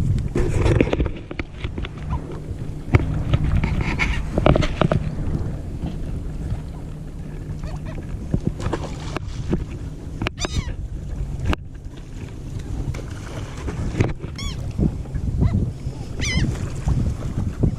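Seagulls calling: a few short, high cries that bend in pitch, heard about ten seconds in and twice more near the end, over a steady low hum from a boat engine.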